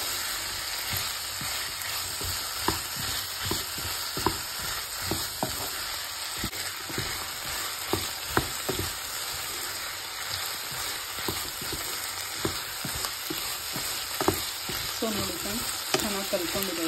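Diced vegetables sizzling in hot oil in a nonstick pan, stirred with a wooden spatula that scrapes and knocks against the pan at irregular intervals.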